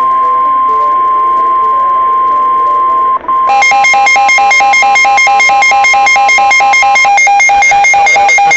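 Weather radio warning alarm: a loud, steady single tone of about a thousand hertz, the 1050 Hz alert tone that announces a new severe weather warning. A little over three seconds in, a rapidly pulsing electronic alert pattern of two alternating pitches joins it, and the steady tone stops about seven seconds in.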